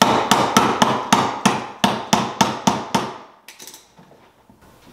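A hammer taps a bolt through the holes in a metal support bar and a plastic base: about a dozen quick, sharp strikes at roughly four a second. They stop about three seconds in, and a few faint ticks follow.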